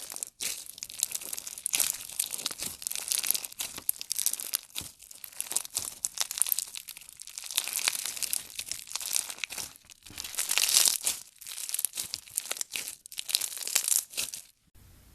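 Slime being pressed, stretched and kneaded by hand, giving dense crackling and popping in waves. It stops abruptly just before the end.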